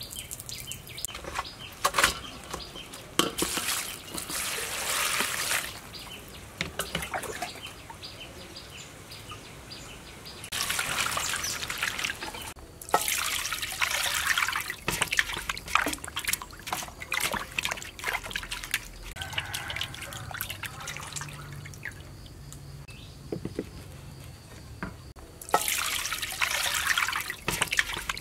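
Raw pork belly being washed by hand in a basin of water: splashing, trickling and dripping in bursts, with quieter pauses between.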